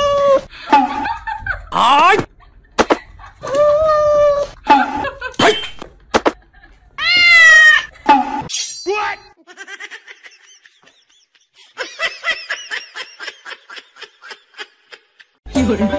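A domestic cat with sticky tape stuck to its paws, meowing and yowling over and over in protest; the longest and loudest yowl rises and falls about seven seconds in. After a break, a quieter run of quick, short, high sounds follows.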